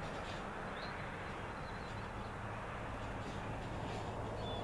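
Diesel freight locomotive idling, a steady low hum over faint background noise, growing a little louder toward the end, with a brief bird chirp about a second in and another near the end.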